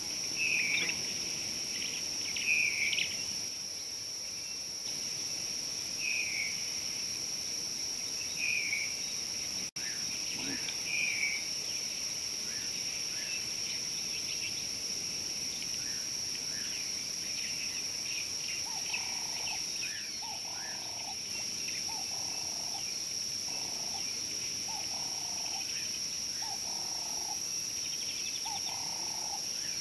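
Steady high-pitched insect drone from bush wildlife, with birds calling over it in short phrases every couple of seconds in the first half. From about two-thirds of the way through, a lower animal call repeats about every second and a half.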